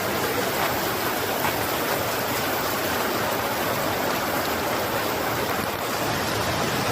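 Fast-flowing water of a rain-fed waterfall and river, a steady, even rush without a break.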